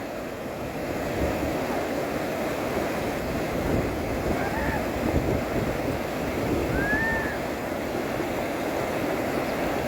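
Steady rushing roar of a swollen, flooding mountain river, with two faint, brief high-pitched calls about halfway through and about seven seconds in.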